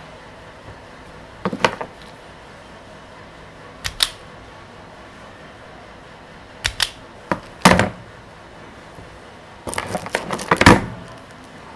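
Sharp clicks and clacks from a self-adjusting wire stripper and wires being handled. They come in short groups, the loudest snap about eight seconds in, and a quick run of clicks near the end.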